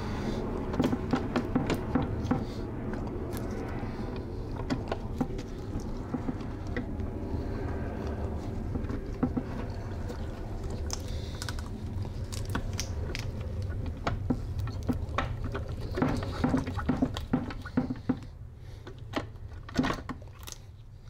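Light metal clicks and clinks of gears and parts shifting inside an aluminium VW transaxle case as the carrier assembly is held up and the idler gear is turned by hand to line up with the reverse gear shaft. The clicks come irregularly, busiest about a second in and again near the end, over a steady low hum.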